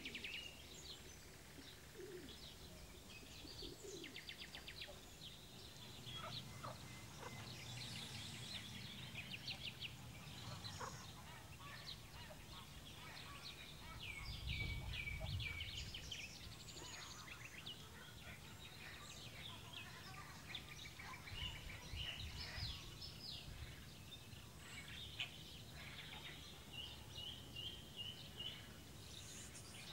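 Many small songbirds singing and chirping at once: short overlapping trills and twitters, high-pitched, all through. A low rumble comes up briefly about halfway through and again a little later.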